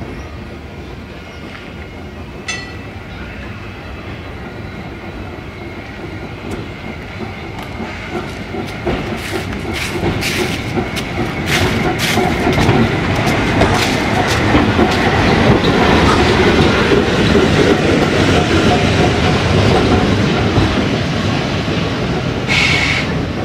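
Glasgow double-deck tram No. 812 approaching and passing close by on street track, growing louder and then fading, its wheels clicking sharply over the rail joints and points. A short high-pitched sound comes near the end.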